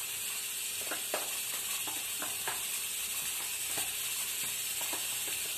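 Onion frying and sizzling in margarine in a frying pan over a steady hiss, with irregular scrapes and taps as a spatula scrapes mashed cooked pumpkin out of a plastic bowl into the pan.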